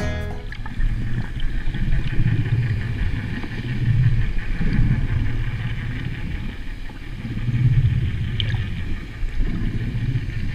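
Muffled low rumble of water moving around a camera held underwater, swelling and easing every few seconds as the swimmer moves near the surface.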